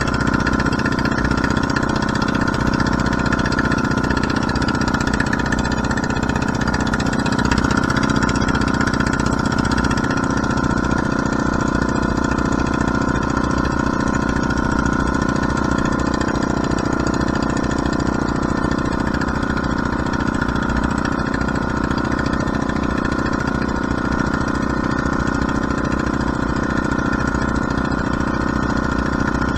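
Engine of a small motorized outrigger fishing boat (bangka) running steadily as the boat cruises, an even, unchanging drone.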